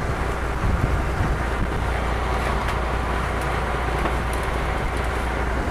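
Steady drone of a fishing boat's engine under way, with wind and rushing sea water.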